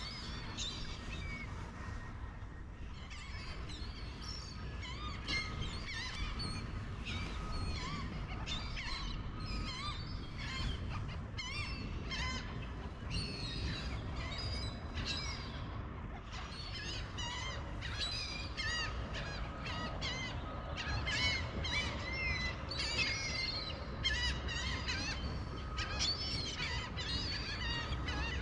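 Birds calling, many quick chirps and squeals overlapping almost without a break, over a steady low rumble.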